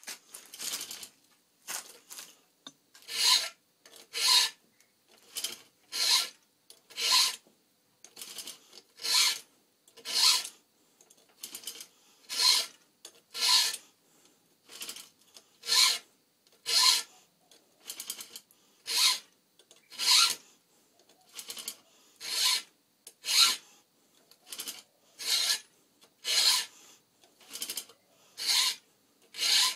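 A 3/8-pitch chainsaw chain's cutters being hand-filed: rasping file strokes about one a second, in a steady rhythm.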